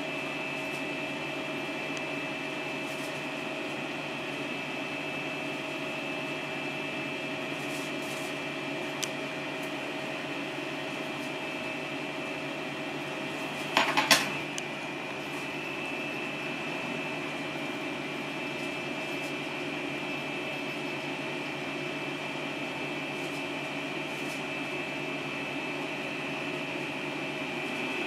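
Steady room hum with a faint high whine. About halfway through there is a brief clatter of small metal tools.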